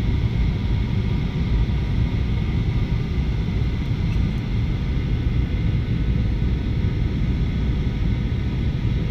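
Cabin noise of a jet airliner on its landing approach: a steady rumble of engines and rushing air, with thin, faint whining tones above it.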